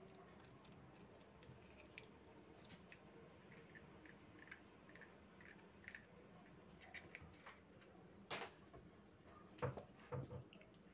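Near silence, with faint small clicks of an eggshell being pulled apart and emptied over a bowl of flour and butter, then a sharper click and a few soft knocks near the end.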